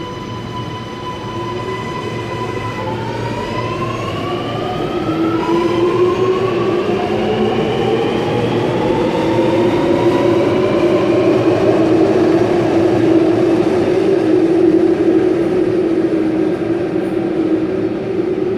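Alstom Metropolis metro train pulling out and accelerating: the whine of its electric traction motors and inverters climbs in pitch in steps while the train grows louder, over a steady low rumble.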